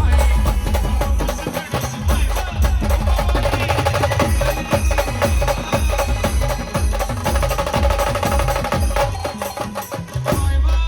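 Brass band music with heavy drumming and percussion: a dense run of drum strikes and thumps under horns holding a steady note, swelling louder just before the end.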